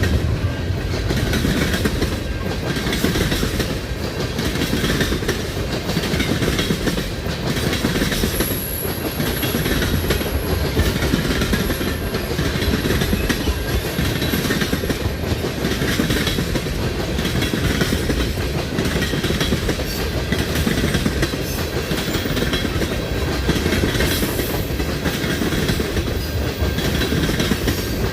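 CN freight train's cars rolling steadily past, wheels clacking over the rail joints, with a thin high wheel squeal for several seconds about a third of the way in.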